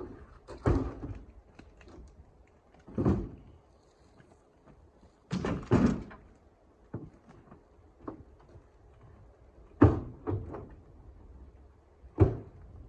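Split firewood being handled and tossed down, a series of irregular heavy wooden thunks and knocks, the loudest about ten and twelve seconds in.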